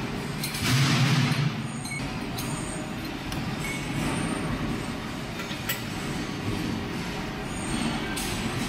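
A large lathe chuck being tightened with a long chuck-key bar: metal scraping and a few sharp clinks over a steady rumble of workshop machinery, the scraping loudest about a second in.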